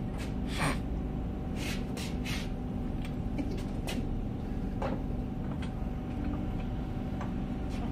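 Short knocks and scrapes of steel on steel as a chalk-mould tray is handled and fitted onto the steel frame of a chalk-making machine, several in the first half, over a steady background hum.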